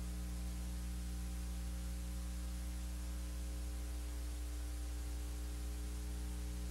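Steady electrical mains hum with a ladder of evenly spaced overtones, over a constant hiss: the noise floor of an old analog recording's soundtrack.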